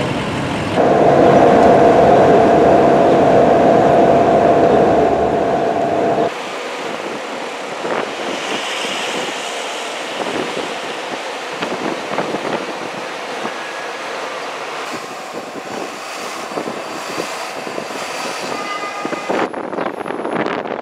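Street traffic heard from the top deck of a tour bus: heavy rumble with a loud steady horn-like tone held for about five seconds, which cuts off abruptly, then lighter traffic noise with scattered small clicks.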